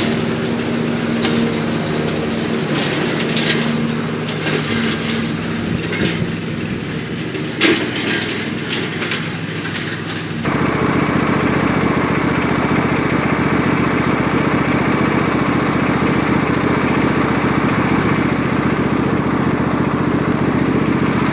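Briggs & Stratton 24 HP V-twin engine of a Craftsman ride-on mower running steadily with the blades engaged, mulching grass. In the first half sharp cracks and ticks sound over the engine; about halfway the sound changes abruptly to a louder, steadier engine note.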